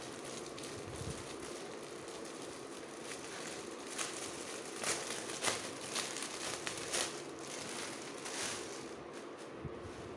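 Clear plastic packaging bag crinkling and rustling as it is pulled open by hand, with a run of sharper crackles between about four and seven seconds in.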